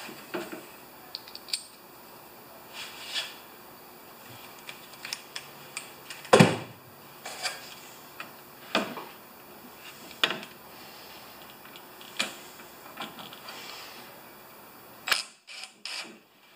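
Scattered clicks and knocks of small metal parts and tools being handled while the discharge chute is fitted onto a snow thrower. The loudest knock comes about six seconds in.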